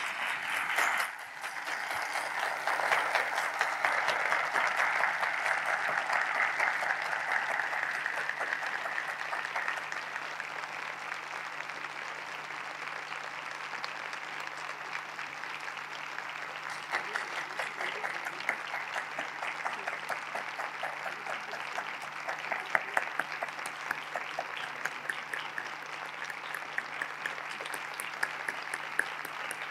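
Sustained applause from many people clapping steadily, rhythmic minute-long tribute clapping that holds throughout with individual claps standing out more toward the end.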